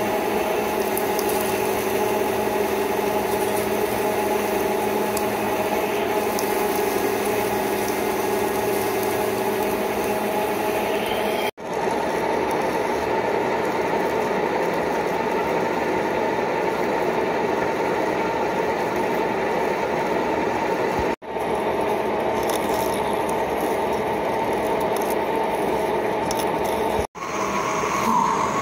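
A 1616 metal lathe running under cut, with a steady whine of several tones over a mechanical rumble. It is first drilling the centre of a spinning backplate blank with a large twist drill, then boring out the hole. The sound cuts off abruptly for an instant three times.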